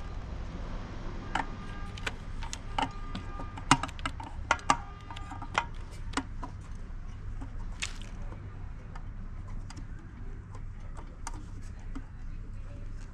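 Irregular sharp metallic clicks and clinks from hand tools and metal parts being handled while an electric bicycle is worked on, busiest in the first half, over a steady low hum.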